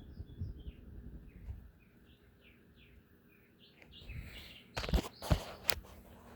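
A small bird chirping: a quick run of short high chirps, then a string of short falling chirps. Several sharp knocks come about five seconds in.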